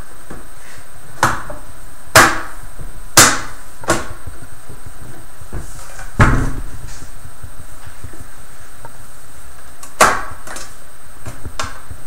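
Netgear ReadyNAS NV+ metal enclosure being handled on a wooden tabletop: scattered sharp knocks and clunks as the stuck side panel is pushed at, with one heavier thump about six seconds in as the unit is turned and set down on its end.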